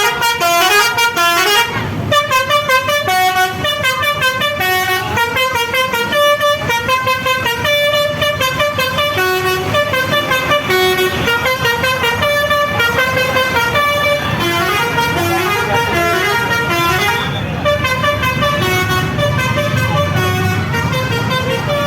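Indonesian 'telolet' bus horn, a Basuri multi-tone air horn, playing a quick jumping tune of short notes on several pitches over the bus's low engine rumble.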